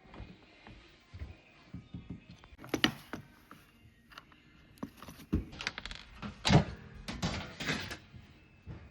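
Dishwasher being handled: a series of knocks, clunks and rattles of its door, panels or racks being moved, the loudest clunk about two thirds of the way through.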